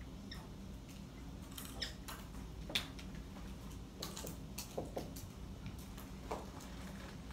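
Dry-erase marker squeaking on a whiteboard in short, irregular strokes as a diagram is drawn, the sharpest squeak about three seconds in, over a steady low room hum.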